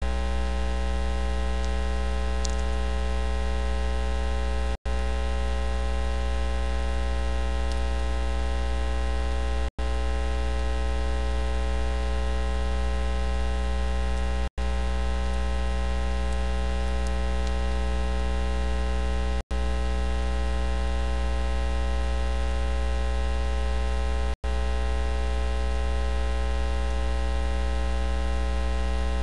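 Loud, steady electrical mains hum with a buzz of many evenly spaced overtones filling the audio feed, with no voice heard over it. It cuts out for an instant about every five seconds.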